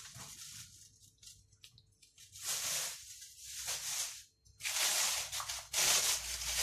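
Thin plastic bag rustling and crinkling as raw chicken pieces are handled and put into it, in several bursts that begin a couple of seconds in and grow louder near the end.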